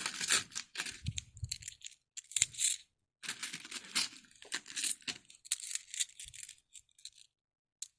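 Coins clinking and jingling as a handful of them is sorted and shifted in the hand. There are quick runs of sharp clinks with short pauses between them.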